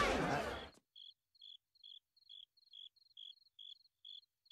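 Electronic dance music cuts off within the first second, then a lone cricket chirps at an even pace, a bit over two chirps a second. It is the stock cartoon crickets effect that marks an awkward silence.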